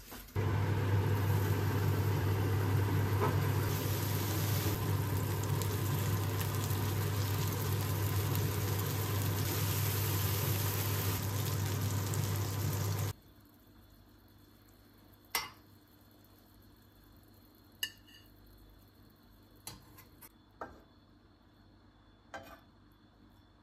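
An electric appliance motor runs steadily with a strong low hum for about thirteen seconds, then switches off abruptly. A few light clicks and clinks follow.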